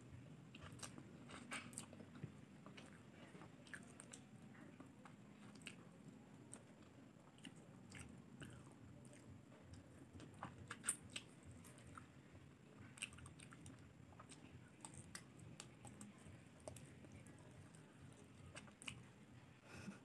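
Faint close-up chewing and biting of chicken adobo eaten by hand, with many small scattered mouth clicks and one louder click about eleven seconds in.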